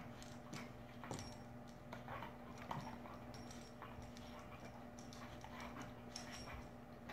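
Dog giving short whimpers and snuffles while playing with a cat, mixed with soft scattered taps and scuffles of paws and muzzle. A steady low hum runs underneath.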